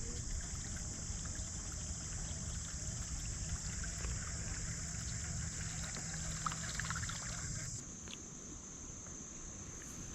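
Water trickling and dribbling around a kayak on a river, over a steady high hiss; a low rumble underneath drops away near the end.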